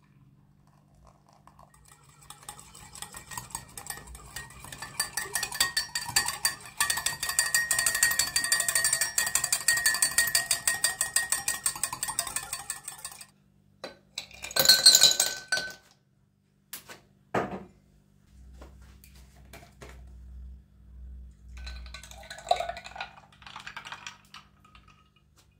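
Matcha being whisked briskly in a ceramic cup: a rapid, even clinking and scraping rhythm for about ten seconds. Then a short loud rush, two clicks, and plant milk pouring from a carton into a glass.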